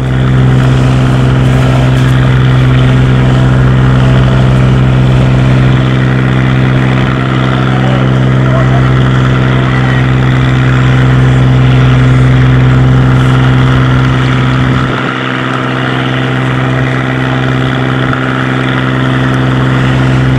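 A fishing boat's Komatsu 750-horsepower marine diesel engine running steadily at low speed with a deep, even hum. The low rumble eases briefly about fifteen seconds in, then picks up again.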